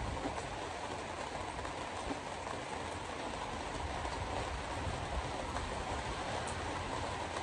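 Steady road noise inside a moving car's cabin: tyres hissing on the wet highway, with a low rumble beneath.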